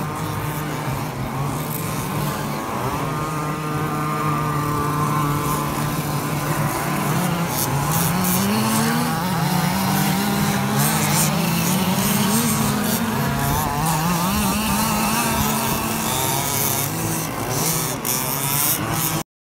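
Several 1/5-scale petrol RC cars' two-stroke engines racing together, with pitches overlapping and rising and falling as they rev and back off. The sound cuts off suddenly near the end.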